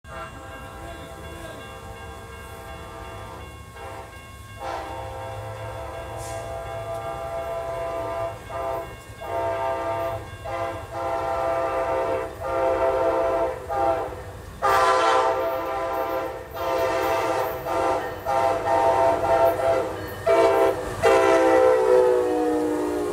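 Amtrak Siemens ALC-42 Charger locomotive horn sounding a series of blasts as a passenger train approaches, growing louder, with the horn's pitch dropping near the end as the locomotive passes.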